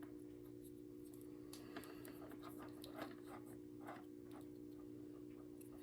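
Near silence over a steady low hum, with a few faint, scattered clicks and ticks from hands wrapping electrical tape around a wire-cap splice.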